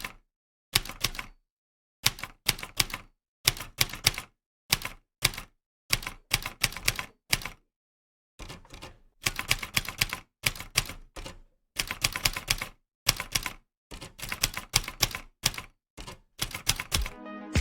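Typewriter keys clacking in irregular bursts of rapid keystrokes, with short silent gaps between bursts and a longer pause about eight seconds in, after which the typing runs faster and denser.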